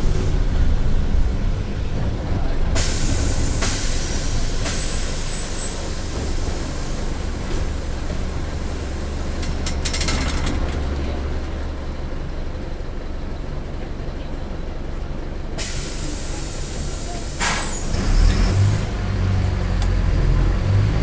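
Mercedes-Benz OF-1722M bus running at low speed with a steady low drone from the engine and drivetrain. Compressed air hisses twice from the bus's pneumatic system, about three seconds in for a couple of seconds and again about sixteen seconds in, with some clicks around ten seconds in. The engine note rises and becomes louder near the end.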